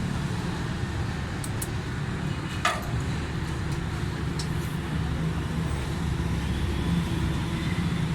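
Steady low rumble of vehicle traffic, with a few light metallic clicks and one sharper metal clink about two and a half seconds in from hand tools at work on the engine.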